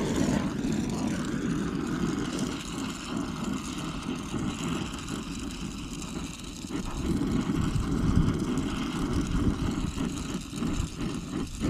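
Brazing torch flame roaring steadily on a copper refrigerant line joint, a deep rumbling whoosh that eases slightly midway and then swells again.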